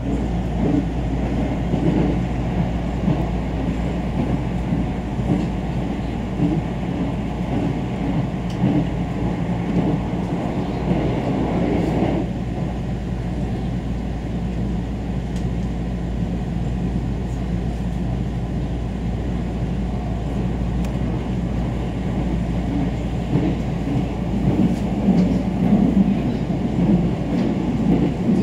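Tokaido Shinkansen train running at speed, heard inside the passenger cabin as a steady rumble, with a brief rush of noise about twelve seconds in.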